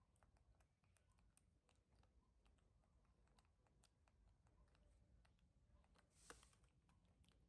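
Near silence, with faint scattered clicks and ticks from baby macaques eating fruit and handling it on a plastic plate. There is a brief soft rustle about six seconds in.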